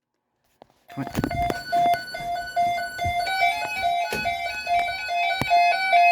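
After about a second of silence, keyboard music starts: quick electric-piano-like notes, with one note repeated over and over.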